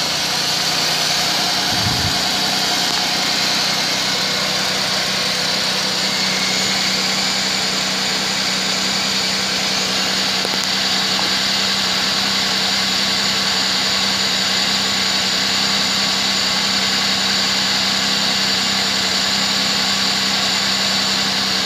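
2005 Chevrolet Impala's V6 engine idling steadily with the hood open.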